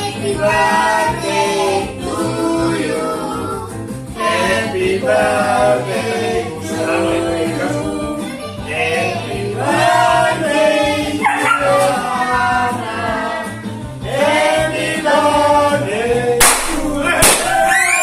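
Birthday song with singing voices and music. Near the end come two sharp pops about half a second apart, as party confetti cannons fire.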